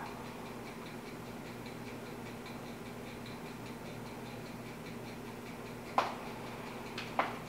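Quiet indoor room tone with a steady low electrical hum and faint regular ticking. Near the end come two short, sharp clicks about a second apart.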